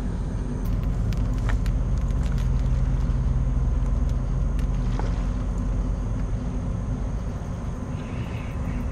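Steady low drone of a ship's diesel engine out on the river, swelling slightly and easing off. Over it come a few light clicks and crunches of footsteps on riverbank rocks.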